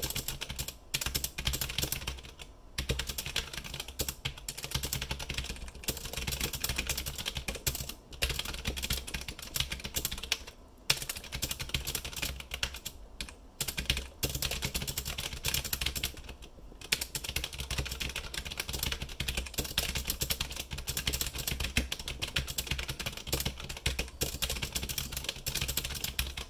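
Fast continuous typing on a mechanical keyboard with Kailh Brown switches and 3D-printed PETG keycaps, a dense stream of key clicks broken by a few brief pauses. A steady low hum sits underneath.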